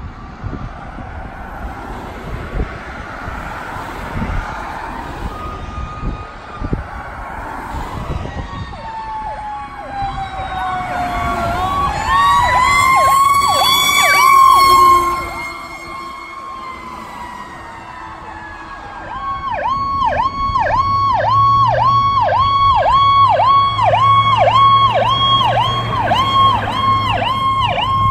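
Road traffic passing, then a fire engine's siren wailing, rising in pitch and growing loud as the engine goes by, then falling away. After that a fire department command SUV's electronic siren yelps, about three sweeps a second, over a low steady hum.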